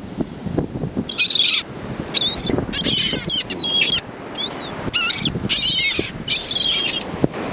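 Seagulls calling in a rapid series of short, high, gliding calls, about eight bursts in close succession, over steady wind rumbling on the microphone.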